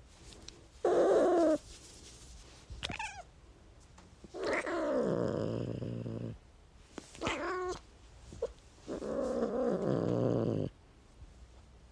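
A cat meowing and growling in a warning, aggressive way: a short meow, a brief high call, a long yowl that slides down into a low growl, another meow, and a final long growling yowl.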